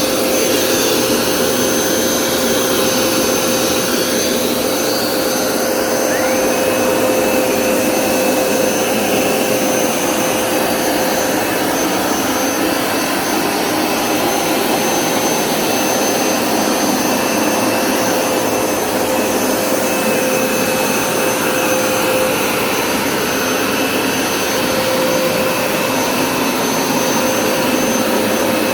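Hoover Smartwash Pet Complete carpet cleaner running steadily on carpet, its suction motor giving a constant whine.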